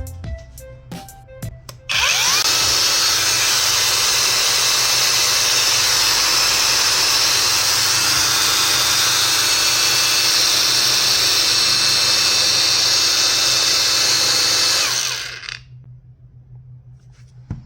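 Angle grinder fitted with an oscillating multi-cutter adapter, switched on about two seconds in and running steadily at full speed. It winds down and stops about fifteen seconds in.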